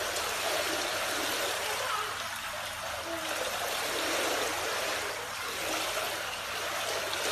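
Swimming pool water trickling and lightly splashing steadily, stirred by a baby and an adult moving in the water at the pool wall.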